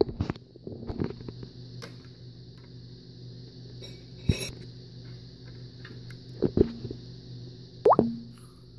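A steady mechanical hum, like a fan or household appliance, with a few sharp clicks and knocks of LEGO pieces being handled on a plate. The loudest knock comes about four seconds in, with others near the end.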